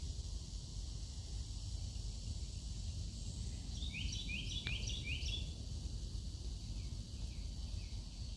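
A bird gives a quick run of about five short, falling chirps about four seconds in, over a steady low outdoor rumble.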